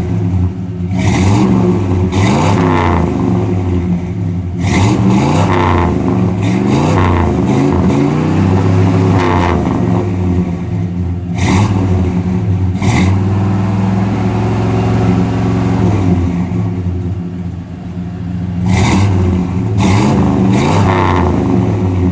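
Ford LTD's engine heard through its exhaust, blipped repeatedly so the pitch rises and falls with each rev, with a steadier stretch about halfway through.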